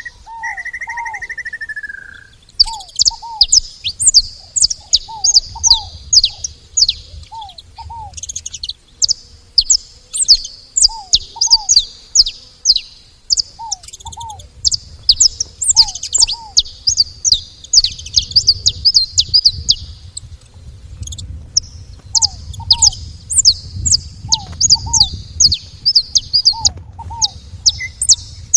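Saffron finches chirping rapidly and almost without pause, sharp high notes overlapping one another. A lower pair of short downward notes repeats every second or two, and a brief held whistle sounds near the start.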